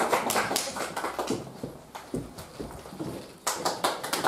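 A small audience clapping in quick, even claps. The clapping dies away after a second or two and breaks out again, louder, about three and a half seconds in as the performer comes out to the piano.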